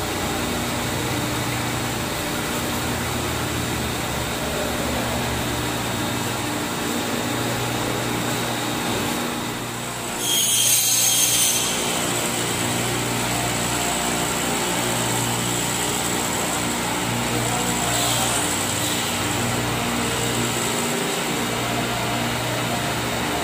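Straight-line glass-edging machine running steadily with a low hum, its grinding wheels working the edge of a 6 mm mirror sheet. About ten seconds in there is a brief, loud, high-pitched screech.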